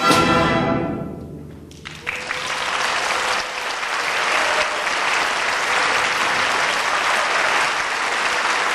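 Symphony orchestra's final chord dying away in the hall, then audience applause breaking out about two seconds in and continuing steadily.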